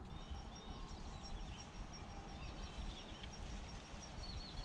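Outdoor ambience: small birds chirping, with a high, evenly repeated chirp and a steady low rumble underneath.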